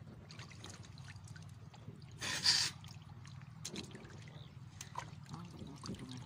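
Water dripping and splashing off a fishing net as it is hauled up hand over hand out of the lake, with one louder splash about two seconds in, over a low steady hum.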